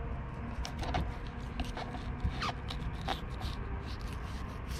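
Fillet knife scraping and crackling through a tripletail's scaly skin as it cuts in behind the head and along the side: short, irregular scratches and clicks.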